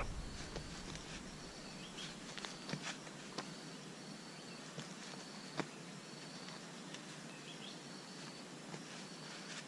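Quiet outdoor ambience with an insect calling in short, high, evenly spaced chirps, a little under one a second. A few faint crunches of dry leaves come from feet shifting on the ground.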